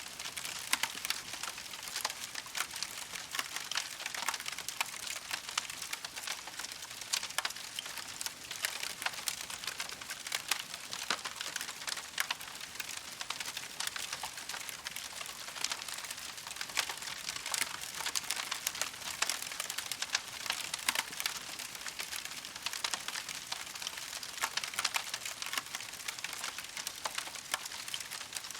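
Wood campfire crackling steadily, a dense stream of small sharp snaps and pops with no break.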